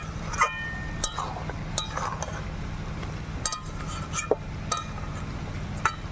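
Flat metal spatula clinking and scraping against a metal kadai while stirring chicken and potatoes in thick masala, a series of irregular sharp clinks with brief metallic rings, over a steady low hum.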